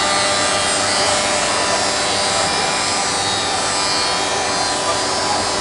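Bacci Master-Win 5-axis CNC working centre's spindle and cutter machining solid wood: a steady whine over dense cutting noise.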